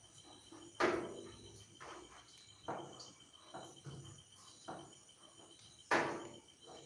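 Handling noise of a hatchery net being lifted from a catfish incubation tank: a few sharp knocks about a second in, near three seconds and near the end, with softer bumps between. Crickets trill steadily in the background.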